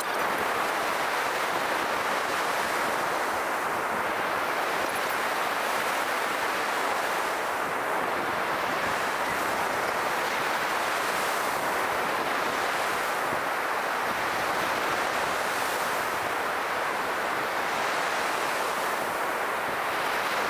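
Ocean surf breaking on a beach: a steady, continuous rush of waves.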